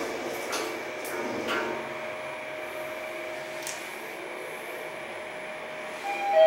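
Mitsubishi passenger lift car travelling down between floors: a steady running noise with a few light clicks in the first second and a half. Near the end a clear chime tone sounds as the car nears the next floor.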